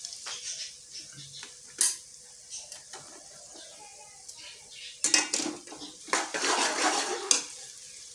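A steel ladle clanking and scraping against an aluminium pot as onions frying in ghee are stirred, in two bouts about five and six seconds in, over a faint sizzle. A single sharp clink comes near two seconds in.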